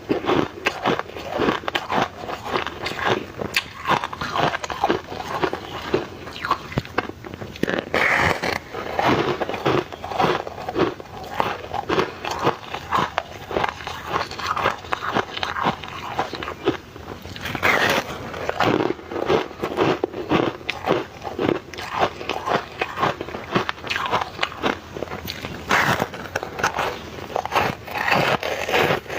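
Ice being bitten and chewed close to the microphone: a steady run of irregular, crisp crunches and cracks.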